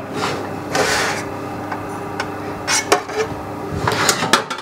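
Stainless steel baking pans and small steel cups scraping and clinking against the oven's wire rack and metal tray as they are lifted out, with a slide about a second in and sharp knocks near three seconds and just after four. A low steady hum runs underneath and stops about three seconds in.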